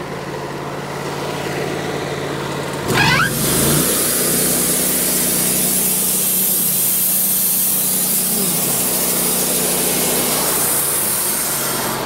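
Wood-Mizer LT40 sawmill engine idling, then revving up quickly about three seconds in and holding at a higher, louder speed. Meanwhile the battery voltage keeps falling: the new alternator is putting out no charge.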